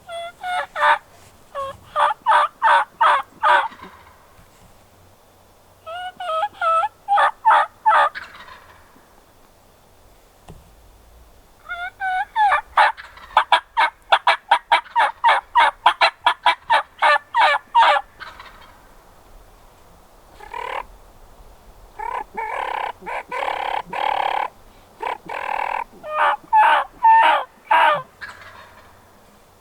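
Wild turkey calling: several runs of sharp, evenly spaced yelp and cutting notes, the longest and fastest in the middle. Near the end comes a denser, rattling call followed by a few more notes.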